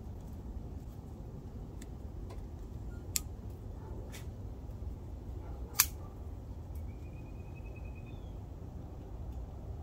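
A handful of short, sharp clicks over a low steady background rumble, the loudest about three seconds and six seconds in.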